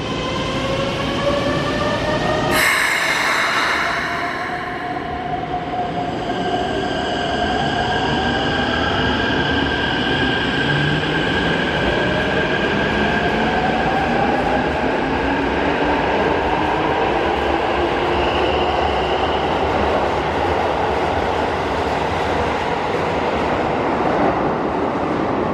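Electric subway train pulling out of an underground station: a short burst of hiss about two and a half seconds in, then the motors' whine rising slowly in several tones as it gathers speed, over the rumble of the wheels.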